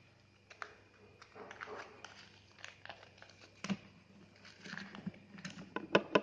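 Folded paper rustling and crinkling as it is handled, with scattered small clicks and a few sharper knocks near the end.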